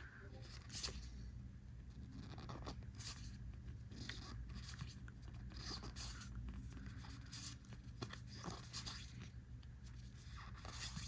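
Trading cards being handled and flipped through, a faint, irregular run of soft slides, rustles and small clicks.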